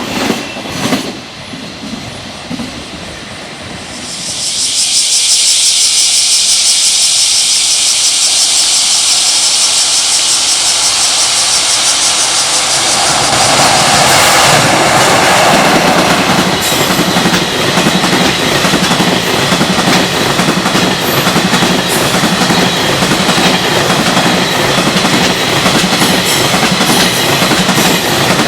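Electric freight train approaching with a loud, high hiss from the rails. Near the middle the locomotive arrives and the sound thickens into a rumble, then the freight wagons roll past with steady clatter over the rail joints.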